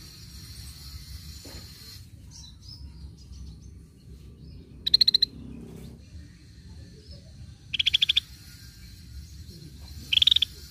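Scaly-breasted bulbul calling: three short rattling calls, each a quick run of pulses, roughly two and a half seconds apart, the first about halfway in.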